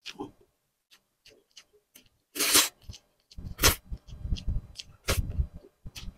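Close-up eating sounds of a person eating grilled tuna jowl by hand: wet mouth smacks and clicks, a louder noisy burst about two and a half seconds in, then steady chewing from about three seconds on.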